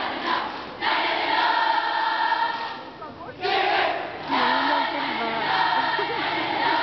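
A large cheering squad voicing a cheer in unison, a massed chorus of many voices, breaking off briefly about three seconds in and then starting up again.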